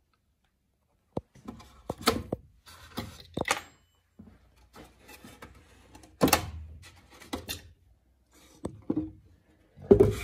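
Irregular knocks, clunks and short scrapes, as of objects being handled and set down; no machine is running.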